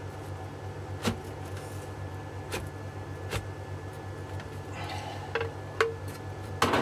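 Scattered sharp clicks and a brief scrape of tools working an e-bike battery pack's case open, over a steady low hum.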